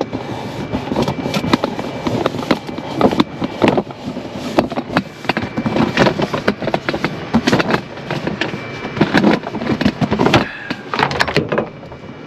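Handling noise as a camera is moved down: irregular knocks, clicks and rustling.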